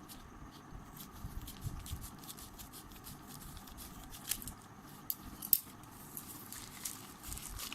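Small handling noises of an unboxing: light scratching and rustling with scattered clicks, and a sharper click about five and a half seconds in.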